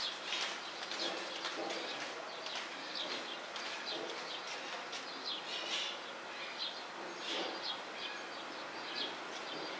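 Birds chirping repeatedly in short calls, with no speech.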